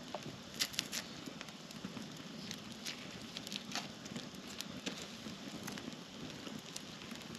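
Wood campfire crackling: a steady low hiss with irregular sharp pops and snaps.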